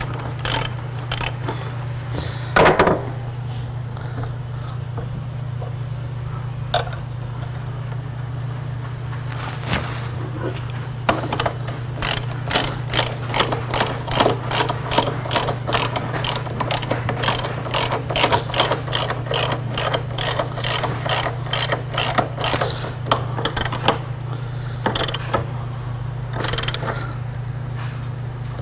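Socket ratchet wrench clicking as it drives lag screws down into a wooden bench top: scattered clicks at first, then a steady run of about two to three clicks a second through the middle.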